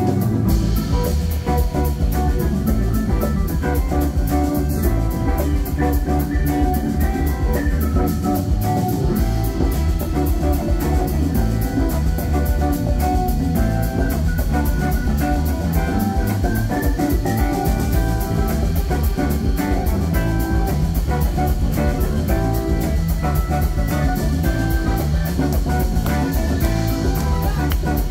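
Live band playing an instrumental passage: guitar and keyboard over a drum kit, with a fast, steady cymbal beat.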